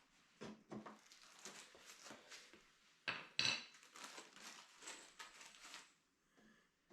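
Clattering knocks and scraping from hand work with tools and materials. The loudest pair of knocks comes about three seconds in.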